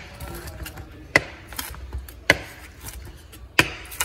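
Chef's knife slicing through a crispy breaded fried chicken breast on a wooden cutting board: the crust crackles under the blade and each stroke ends in a sharp knock on the board, three times a little over a second apart.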